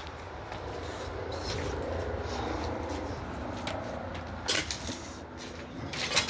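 Steady low rumble with a few short knocks and clatters, the loudest about four and a half seconds in and again near the end.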